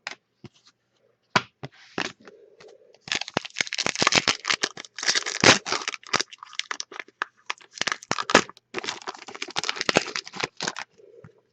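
Trading-card packaging and cards being handled: crinkling, tearing and crackling. A few sharp clicks come first, then a dense run of rustling from about three seconds in that stops shortly before the end.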